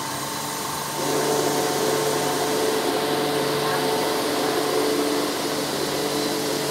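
Train running: a steady mechanical hum with a rushing noise underneath, growing louder about a second in.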